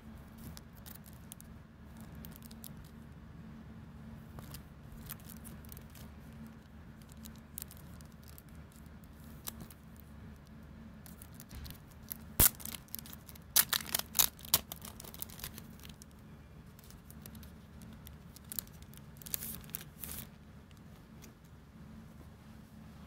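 Paper and plastic packaging being handled: rustling and crinkling of a booklet, plastic sleeve and cardboard, with a sharp click about twelve seconds in, a quick run of crackles just after it, and another brief crackle later on. A steady low hum runs underneath.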